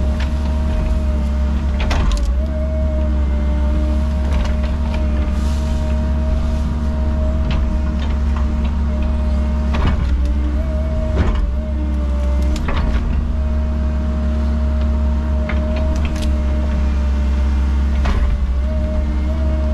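Cat 306 mini excavator running steadily with a high hydraulic whine that wavers and dips now and then as the machine works, and sharp knocks every two or three seconds.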